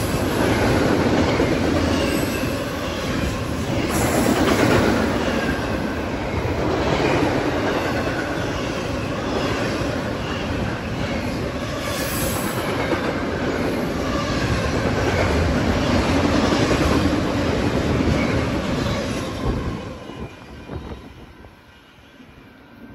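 Double-stack container freight train passing at speed, its wheels and cars rumbling loudly, with faint high-pitched squeals over the noise. About 20 seconds in, the last car goes by and the sound falls away quickly.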